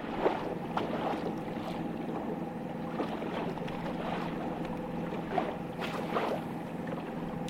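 Boat motor running with a steady, even hum, with a few faint knocks over it.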